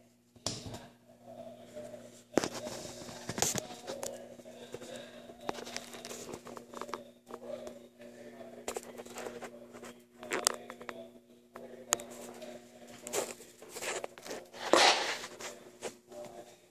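Steady low hum of a stainless-steel chamber vacuum packaging machine, with scattered clicks, knocks and rattles and a few short rustling bursts, the loudest about fifteen seconds in.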